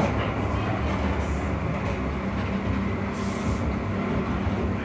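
Tram running, heard from inside the passenger car: a steady low traction-motor hum over wheel-on-rail rumble, with a brief hiss about three seconds in.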